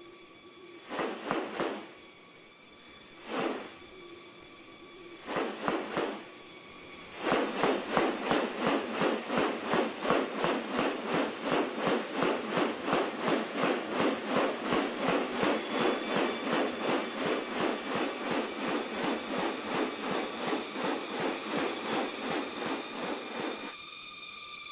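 Rainforest ambience: insects hold a steady high drone throughout. Over it come short sharp pulses, a few spaced apart at first, then a regular train of about two and a half a second from about seven seconds in until just before the end.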